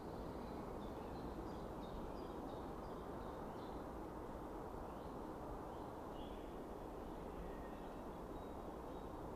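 Quiet forest ambience: a steady low hiss with faint, short, high bird chirps scattered through the first seven seconds or so.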